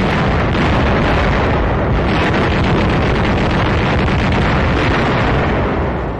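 Newsreel battle soundtrack: a loud, continuous din of gunfire and explosions, shots following one another too closely to separate. It eases slightly near the end.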